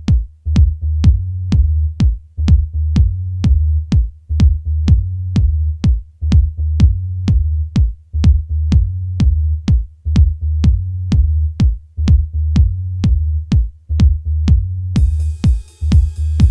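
Electronic dance music with a drum-machine beat, about two beats a second, over a heavy bass line. A bright high layer of hi-hats and synth joins near the end.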